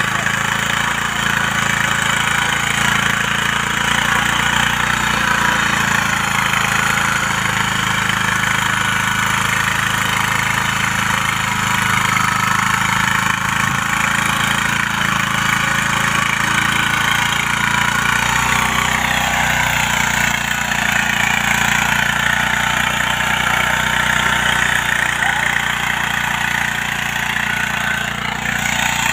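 Small engine of a hand-guided mini power tiller running steadily as its tines work the soil, its note changing slightly about two-thirds of the way in.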